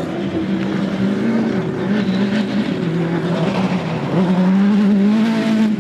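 Off-road racing buggy's engine revving hard as it drives across a dirt course. The note dips a couple of times with throttle lifts and gear changes, then climbs and holds high near the end.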